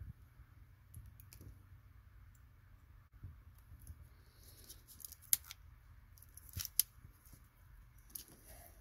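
Hand-held keystone jack termination tool squeezed shut on a network jack, seating and trimming the cable's wires with sharp snipping clicks: one about five seconds in, then two close together a little later, with faint rustling of handling.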